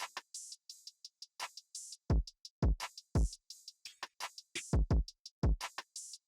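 Electronic drum-machine beat: deep kick drums that drop in pitch, several close together, over crisp hi-hat and snare hits, with no melody.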